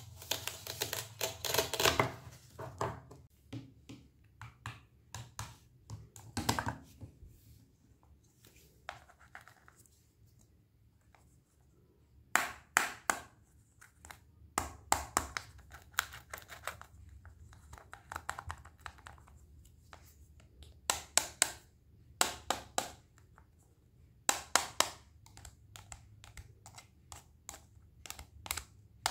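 Knife cutting fresh produce on a cutting board: short, crisp slicing and chopping strokes, a dense run at first and then quick groups of cuts separated by quiet pauses.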